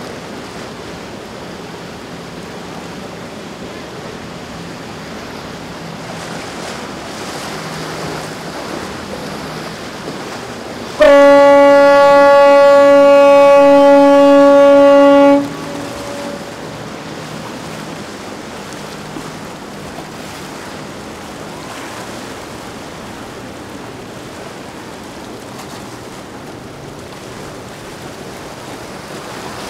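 Surf and wave wash from choppy water as a Sunseeker 95 motor yacht passes. About eleven seconds in, a loud ship's horn sounds one long steady blast of about four seconds.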